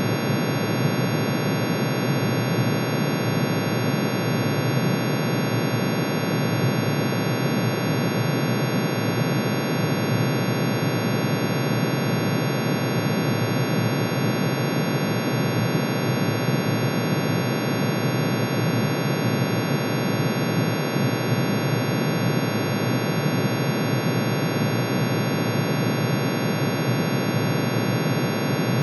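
Computer-generated sonification of iron's atomic emission spectrum: hundreds of sine tones, one for each spectral line, summed into a dense, unchanging drone of many pitches that sounds like steady noise.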